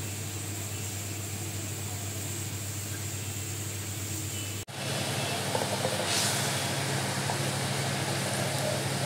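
Mustard gravy simmering and bubbling in a steel kadai on the stove, over a steady low mechanical hum. About halfway through the sound drops out for an instant, then returns louder with more sizzling and crackle.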